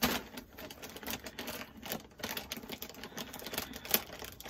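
Dry fruit-ring cereal rattling as it is handled: rapid, irregular clicks and crackles, with one sharper click near the end.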